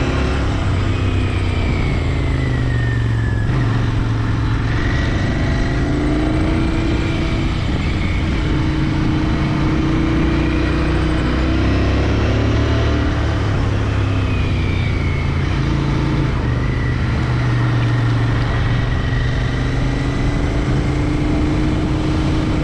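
Royal Enfield Interceptor 650's parallel-twin engine running under way, its note rising and falling several times with the throttle, over steady road and wind noise.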